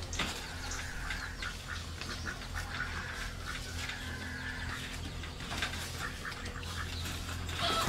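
Poultry calling over and over, with scattered light knocks of bamboo poles being handled; a louder call starts near the end.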